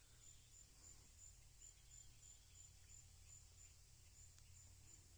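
Near silence: faint outdoor ambience with a low hum and a faint high-pitched pulse repeating about twice a second.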